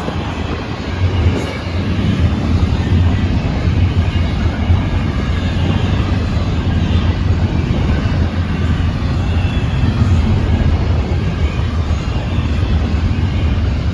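Freight train cars rolling steadily past, a continuous low rumble of steel wheels on the rails.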